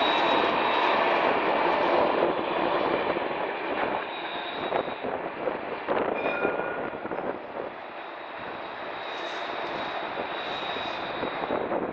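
Alstom Citadis tram passing close and rolling away, its running noise loudest at first and fading over the first few seconds, followed by scattered clicks of the wheels on the track and a lower, steady rumble as it moves off.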